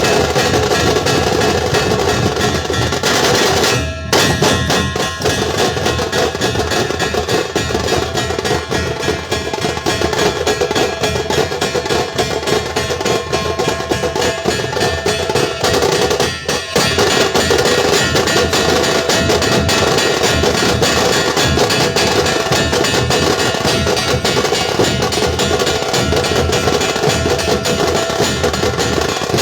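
Dhol-tasha troupe playing: big barrel dhol drums and sharp tasha drums beating a fast, loud, continuous rhythm, breaking off briefly about four seconds in and again about sixteen seconds in.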